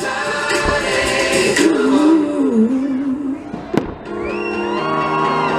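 Music with a singer plays over a fireworks show, and one sharp firework bang comes a little under four seconds in.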